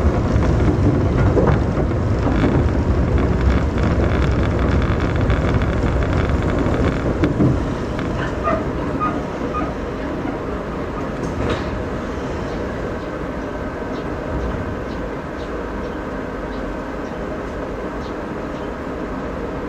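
Inside a train: the running rumble fades as it slows and comes to a stop, with a few clicks over rail joints. A quieter steady hum remains while it stands.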